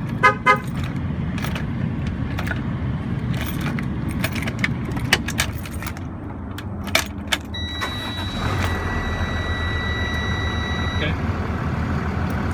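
Two short chirps from the Avital 3100 alarm's siren as it is disarmed, then a few clicks and a steady electronic beep lasting about three seconds. Near the beep's start the Freightliner truck's engine starts and runs, the alarm's starter kill no longer stopping it.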